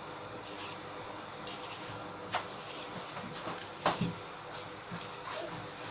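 A kitchen knife knocking on a cutting board a few times as vegetables are cut, with softer clicks in between, over a steady low hum.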